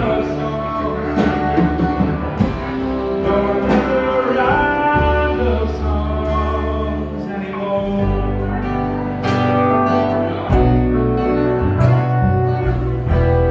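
Band music with guitar and bass: an instrumental passage of a country song, with held notes over a changing bass line and regular strummed or struck beats.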